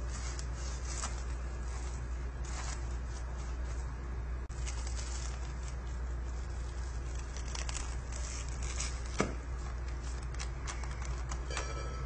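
Chef's knife cutting down through a crisp, flaky baked pot pie crust: scattered dry crackles and crunches, with a louder snap about nine seconds in.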